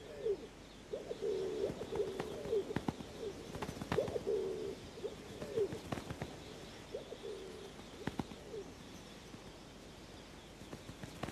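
Rock pigeons cooing: a run of short, low coos repeated over the first seven seconds or so, with a few sharp clicks in between.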